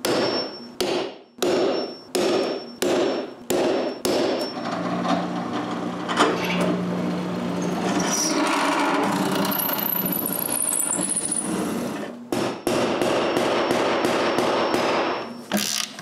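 Hammer blows driving carriage bolts through steel plates into wood, about two strikes a second with a metallic ring. After about four seconds they give way to a drill press running and drilling through a steel plate for several seconds. Hammer strikes resume near the end.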